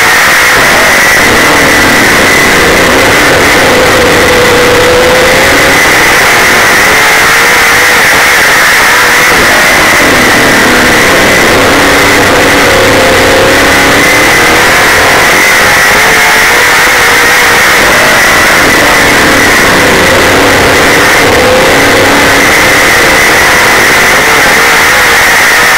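Super late model dirt race car's V8 engine running at racing speed, loud, heard from inside the car. Its note rises and falls in a repeating cycle about every eight seconds as the car laps the track.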